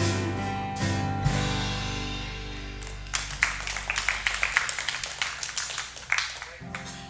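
A live worship band's final chord rings and fades out, with scattered clapping from a small congregation a few seconds in. A new guitar chord starts near the end.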